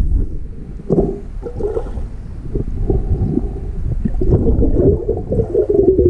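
Underwater sound picked up by a camera submerged in a river: low rumbling water movement with gurgling and a scatter of small clicks.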